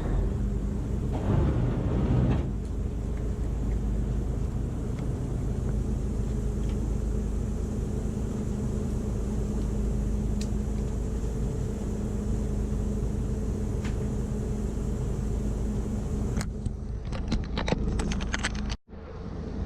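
A boat's engine runs steadily with a low hum, and there is a brief louder noisy patch about a second in. Near the end come a few sharp clicks, then the sound cuts off abruptly.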